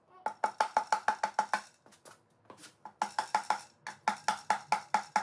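Mallet tapping the Yamaha F300 lower bearing carrier assembly into the gear case, driving it into its bore. The rapid taps come about five a second in several runs with short pauses between them, and each tap carries a short ring from the metal housing.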